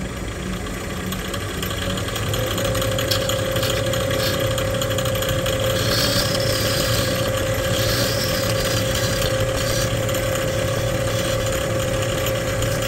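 Benchtop lathe motor running with a steady whine and hum, while a hand-held turning tool cuts into the spinning workpiece with an uneven scraping hiss from about three seconds in until about ten seconds in.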